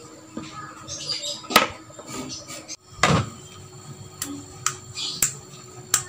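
Several sharp clicks of a small hand-held switch being flipped and handled; no motor runs, since the drive is still on its default panel-control setting and ignores the external switch.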